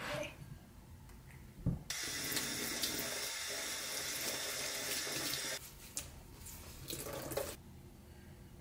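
Kitchen tap running into a stainless steel sink, water splashing over hands. The tap comes on about two seconds in, just after a short knock, and stops a few seconds later, followed by softer splashing.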